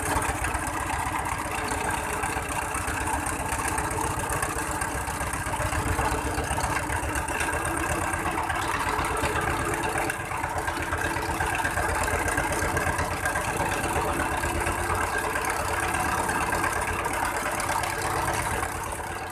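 Wooden boat's engine running steadily under way, with a fast, even low pulsing.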